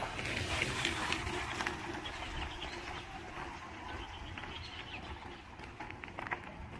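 Outdoor bush ambience: birds calling over a steady noisy background, with a few soft clicks scattered through it.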